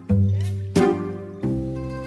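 Background music: a bouncy tune with a strong bass note struck about every two-thirds of a second, with a short sliding squeak-like effect partway through.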